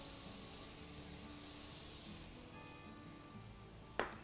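Chopped onions and peppers frying in a pan, a soft hiss that fades about two seconds in, under faint background music. A short click near the end.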